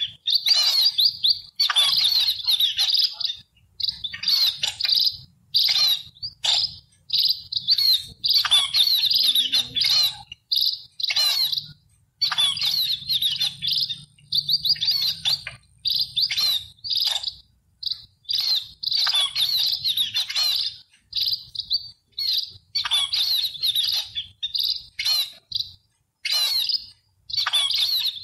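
Sparrows chirping in quick bursts of rapid, high chirps, each run lasting a second or so, with short silent gaps between them.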